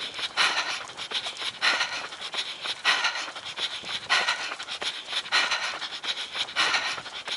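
A runner breathing hard close to a body-worn camera's microphone, a heavy breath about every second and a quarter, six in all: the labored breathing of late-race exertion.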